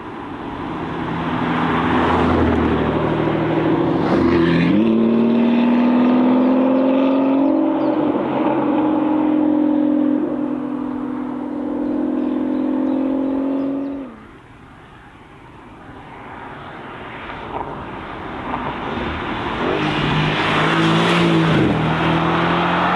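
A high-performance car engine accelerating hard, with one gear change about four and a half seconds in. After the shift it pulls steadily for about ten seconds, then cuts off suddenly as the driver lifts off. After a short lull, another car's engine grows louder toward the end.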